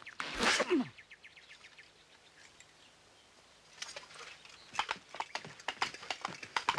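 Coconut halves knocked together as mock horse hooves, a clip-clop of sharp knocks at an uneven trotting pace starting about four seconds in. In the first second there is a short, loud noisy sound with a falling pitch.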